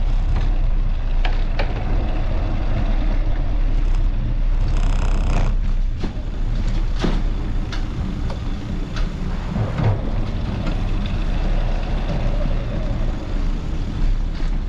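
Road traffic noise with a steady low rumble and scattered clicks, and a brief high-pitched squeal about five seconds in.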